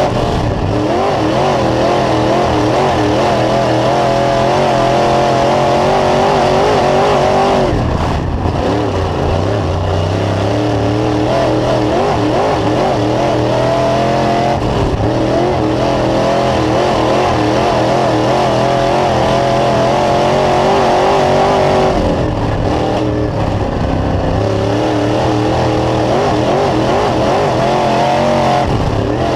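Dirt late model's 602 crate small-block V8 at racing speed, heard from inside the cockpit. The engine note drops about eight, fifteen and twenty-two seconds in as the throttle comes off for the turns, then climbs again on the straights.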